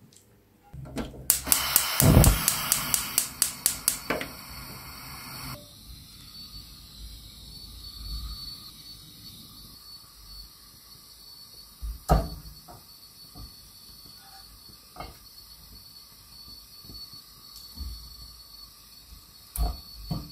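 Sliced onions dropping into hot oil in a pan: a loud sizzle with a quick run of sharp crackles, about five a second, that settles after a few seconds into a soft steady hiss. A few single knocks come later.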